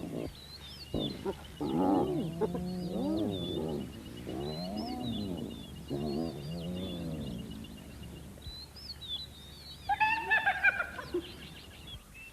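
Spotted hyenas calling: a string of low calls that rise and fall in pitch, then higher, whining calls about ten seconds in. Birds chirp faintly in the background.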